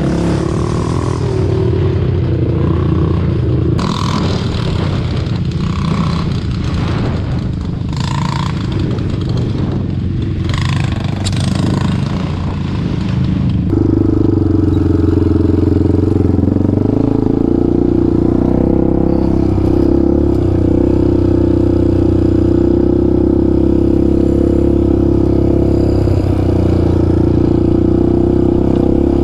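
Yamaha Raptor 700 sport quad's single-cylinder engine running on the trail, with rattles and knocks from rough ground through the first half. About halfway through the engine settles into a louder, steady run.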